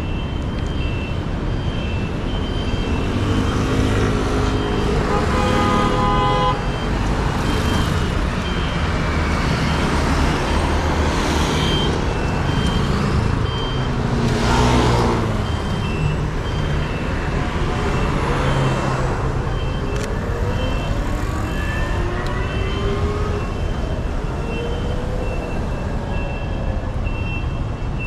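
Road traffic on a busy street, with motor vehicles running and passing by and one passing louder about halfway through. A high electronic beep repeats about once a second.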